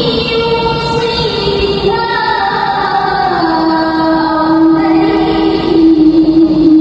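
A young woman's voice reciting the Quran in melodic tilawah style through a microphone, with long ornamented notes that step downward and settle into one long held note from about halfway in.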